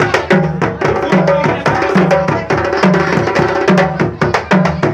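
Hand drums playing a fast punta rhythm, with sharp quick strokes over a deep drum note that comes back at a steady pace.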